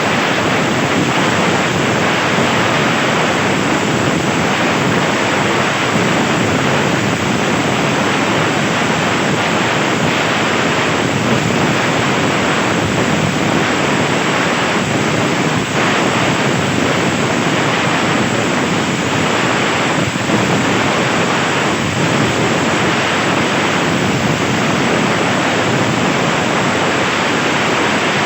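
CNC plasma cutter cutting 1.5 mm sheet steel: a loud, steady hiss of the plasma arc and its air stream.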